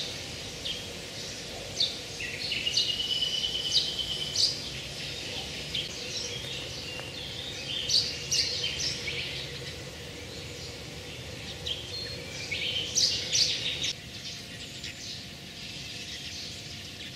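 Several songbirds singing and chirping, with many short high calls and one held note lasting over a second, about two seconds in; the calls thin out near the end.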